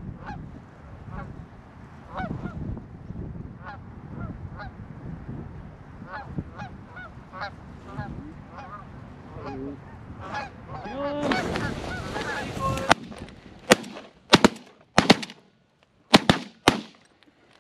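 Flock of Canada geese honking overhead, the calls growing louder and denser, then a rustle and a volley of about six shotgun shots over roughly three seconds as the hunters rise from their layout blinds and shoot at the birds.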